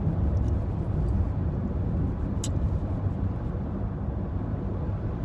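Steady low rumble of a running car, with one short tick about two and a half seconds in.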